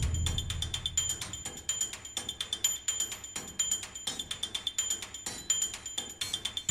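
A fast, somewhat uneven run of sharp clicks, several a second, with brief high-pitched tones among them, rhythmic like music.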